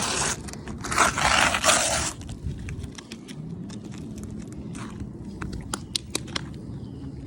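Asphalt roof shingles scraping and crackling as they are handled, most likely tabs being lifted to check for creases and tears: two loud scrapes in the first two seconds, then scattered small clicks and rustles.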